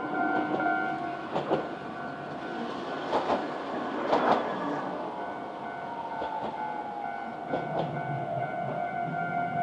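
Iyo Railway city tram passing over a level crossing, its wheels clacking over the rail joints several times, while the crossing's warning bell rings steadily behind.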